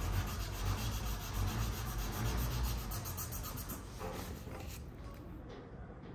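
Steel knife blade clamped in a vise being hand-sanded, a rasping rub in quick back-and-forth strokes that dies away about four seconds in.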